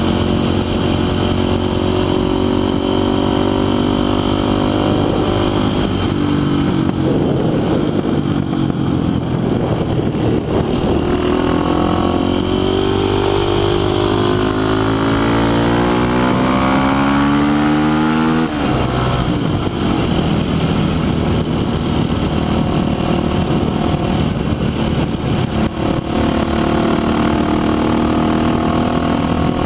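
Motorcycle engine heard from the bike's onboard camera, running steadily, then climbing in pitch as it accelerates from about twelve seconds in until the pitch drops abruptly around eighteen seconds in, after which it runs steadily again. Wind and road rush sits under the engine throughout.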